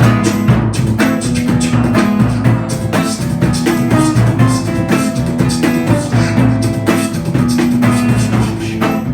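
Live band playing an instrumental passage of a song: a drum kit keeps a steady beat over held bass notes.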